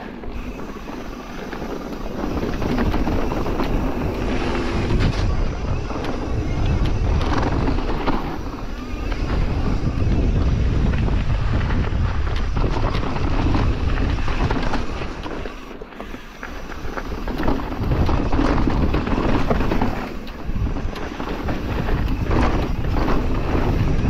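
Wind buffeting the microphone during a fast mountain bike descent down a flow trail, mixed with the rattle and rolling noise of the bike on the trail. It eases briefly about two-thirds through, then picks up again.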